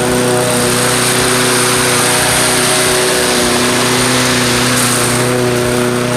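Harbor Freight Predator 173cc single-cylinder OHV engine on a walk-behind rotary lawn mower running steadily at constant speed, blade turning.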